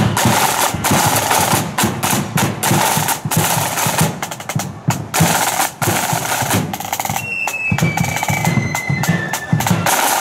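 Marching band's side drums and bass drum playing a dense marching beat with rolls. From about seven seconds in, a few high held notes step down in pitch over the drumming.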